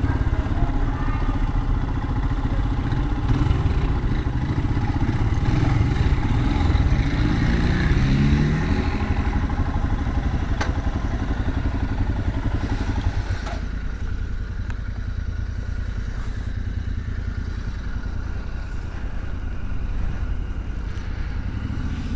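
Royal Enfield Himalayan's single-cylinder engine running at low speed, with a brief rev that rises in pitch around seven to nine seconds in. It then settles to a quieter steady idle from about fourteen seconds, with a couple of sharp clicks in between.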